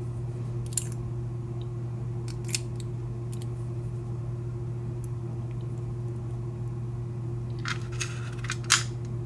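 Light metallic clicks and taps of small lock parts being handled, as the pin tumblers are set against the key's cuts. There are a few single clicks early on and a quick cluster near the end, over a steady low hum.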